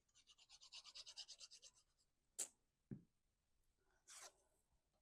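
Quick, even rubbing of paper, about nine strokes a second, then a sharp tick, a soft thump and a brief scrape near the end, as paper flower pieces are worked and set down.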